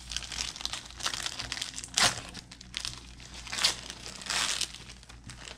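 Paper trading-card pack wrapper being torn open and crinkled in the hands, a run of crackly rustles with two sharp, loud tears about two seconds in and again a second and a half later.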